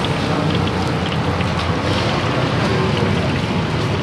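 Karaage deep-frying in a wok of hot oil: steady sizzling with scattered small pops, over a steady low rumble.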